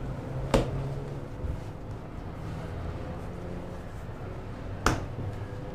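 Steady low machine hum with a few fixed low tones, broken by two sharp knocks: one about half a second in and one near the end.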